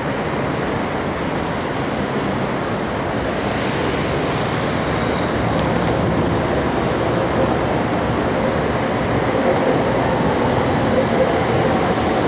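BART train approaching along the platform, its running noise growing steadily louder over the constant sound of road traffic. There is a brief high hiss about four seconds in, and a steady hum comes in over the last few seconds as the train draws close.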